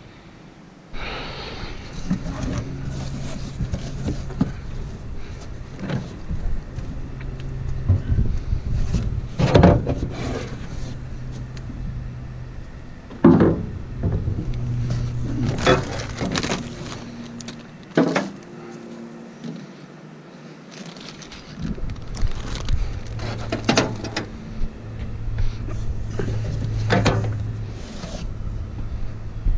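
Knocks and clatter of intake parts and packaging being handled by hand, over a steady low hum that drops out for a few seconds in the middle.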